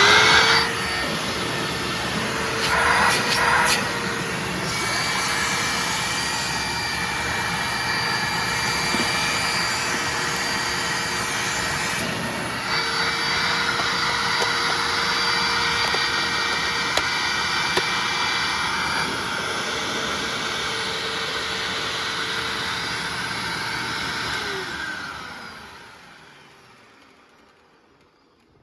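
Hoover WindTunnel Self-Propelled Ultra upright vacuum cleaner switched on, its motor whining up to speed and then running steadily with a rushing suction sound through the hose and turbo brush. There is a brief change about twelve seconds in. Near the end it is switched off and the motor winds down.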